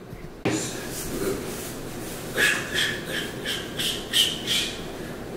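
Clear plastic bag crinkling and rustling as cockroaches are handled out of it, in a run of short scraping bursts, about three a second, through the second half. A sudden louder sound comes about half a second in.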